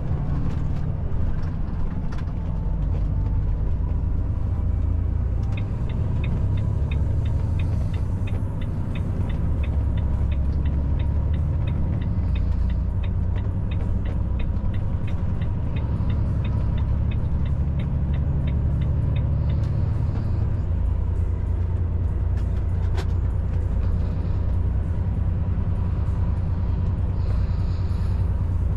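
Cab interior of a loaded Volvo FH540 truck cruising on the highway: a steady low rumble from its engine and tyres. For about fourteen seconds in the middle the turn signal ticks, about three ticks a second, and a little after that the engine's low note shifts.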